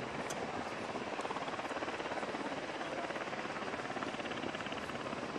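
Helicopter running: a steady rushing noise with a rapid, even beat from the rotor blades.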